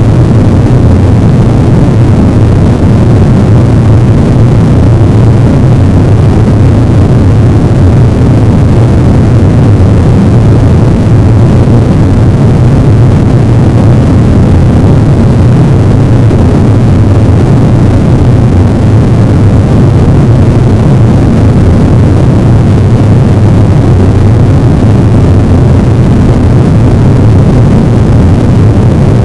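Harsh noise wall: a dense, unchanging wall of distorted static at near full loudness, heaviest in a low rumble, with no rhythm, pitch or breaks.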